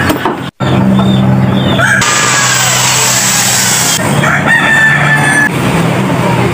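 A rooster crowing, two pitched calls with the second held for about a second, over a steady low hum.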